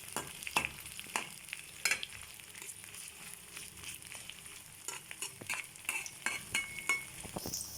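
Onions, green chillies and garlic sizzling in mustard oil in a kadai while being stirred, with irregular clicks and scrapes of the stirring spoon against the pan over a steady high sizzle. The onions are at the stage of being fried towards brown.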